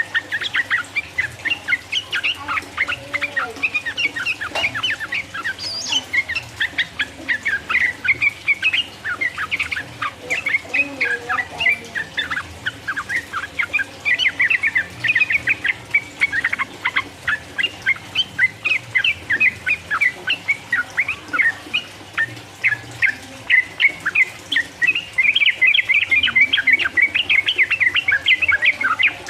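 Yellow-vented bulbul (trucukan) singing a fast, unbroken run of short bubbling chirps: the long 'ropel' song that bird keepers play to stir other trucukan into singing.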